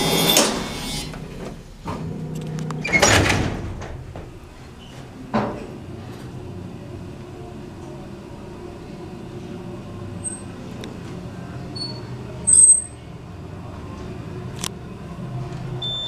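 Otis hydraulic freight elevator: the doors close with a loud rattling rumble about three seconds in, then the car travels with a steady low hum. A few short high beeps and sharp clicks come in the last several seconds.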